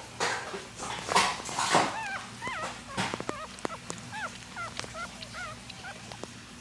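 Newborn Poodle-Pomeranian puppies squeaking and whimpering as they nurse: many short, wavering high-pitched cries from about two seconds in, with small clicks between them. Before that, a few loud rustling bursts.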